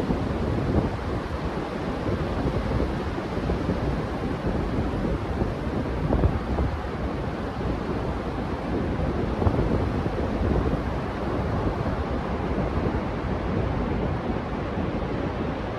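Ocean surf breaking on the beach, a steady wash of noise, with wind noise on the microphone.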